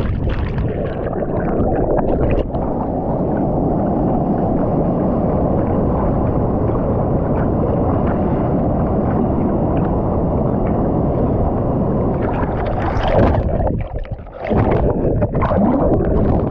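Churning water of a waterfall plunge pool heard underwater, a dense muffled rushing with bubbling. About 13 seconds in it briefly thins out, then comes back with short splashing sounds as the camera nears the surface.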